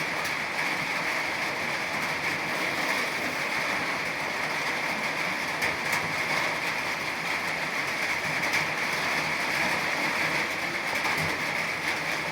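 Steady rain falling, a constant hiss with a few faint drop ticks.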